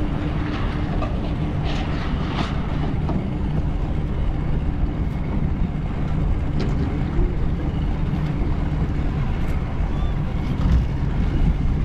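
Steady low rumble of wind on the microphone together with a boat's motor running, with a faint steady hum in the first half.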